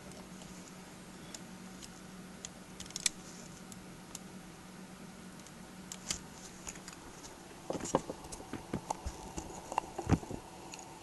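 Light clicks and taps of a flat-blade screwdriver and fingertips working at the tape over a laptop screen's video cable connector, scattered at first and coming in a busier cluster in the last few seconds, over a faint steady hum.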